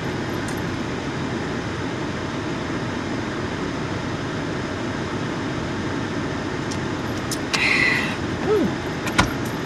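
Car air conditioning blowing steadily in the car cabin, a hot day's cooling air. Near the end there is a brief louder noise, then a sharp click.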